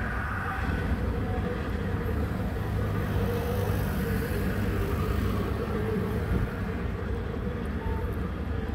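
Busy city street noise: a steady rumble of traffic.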